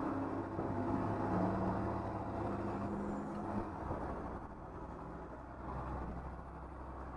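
School bus engine running steadily, heard from inside the cab, then easing off and quietening about halfway through.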